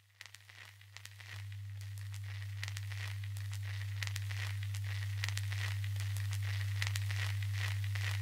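Dense crackling and popping like the surface noise of a vinyl record, over a steady low hum that gets louder about a second in: the lead-in of the recorded track.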